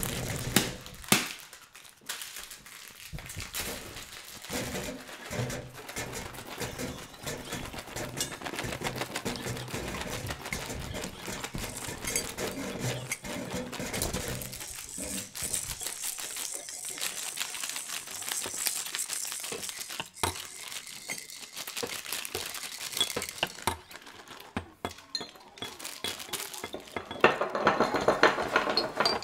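Improvised percussion on found household objects: a dense layering of small clicks, clinks, rattles and crinkling, with a sharp strike about a second in. The sound thins out midway and grows denser and louder near the end.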